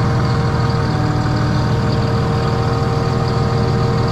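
Engine of a Sermac CitiPump concrete pump truck running steadily, with a faint steady whine above the low engine note.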